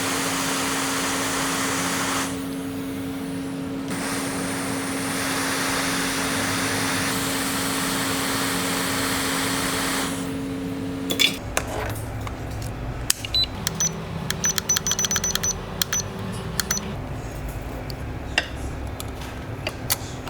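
Hot air rework station blowing with a steady hiss and hum, as used to lift or reflow a charging IC on an iPhone logic board. It cuts off suddenly about eleven seconds in, and is followed by many small sharp clicks and taps of metal tools on the board.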